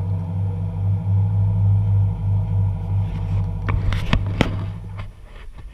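Steady low engine hum aboard a fishing boat, with three sharp knocks about four seconds in. The hum cuts off shortly after.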